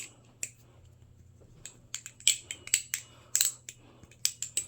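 Balisong being flipped: the handles and blade clack sharply against each other with a faint metallic ring. One clack comes early, then after about a second's pause a quick, uneven run of about a dozen clacks.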